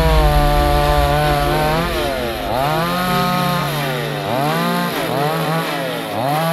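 Petrol chainsaw cutting through branches. The engine pitch rises and sags about four times as the chain bites into the wood and frees again.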